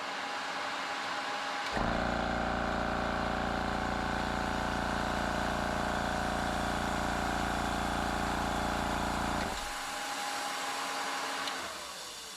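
Air Venturi 4500 high-pressure air compressor on a trial run after a gauge repair. Its cooling fan hums steadily; about two seconds in, the compressor motor starts with a loud, even hum and runs for about eight seconds, then cuts off. Near the end the remaining hum falls in pitch and fades as the fan winds down.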